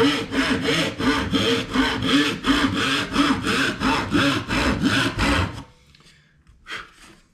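Handsaw cutting through a thin sheet of wood veneer in quick, even strokes, about four a second. The sawing stops about five and a half seconds in, and a single short scrape follows near the end.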